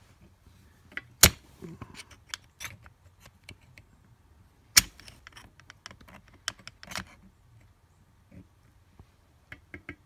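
Small metal clicks and scrapes of a steel awl prying a coil spring onto its peg on a VW Type II bus sliding-door hinge. Two sharp metallic clicks stand out, a little over a second in and near five seconds, among irregular lighter ticks.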